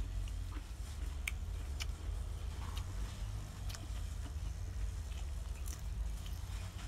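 Deep-fried snakehead fish being torn apart by hand and chewed: a scatter of short, sharp crackles and crunches over a steady low rumble.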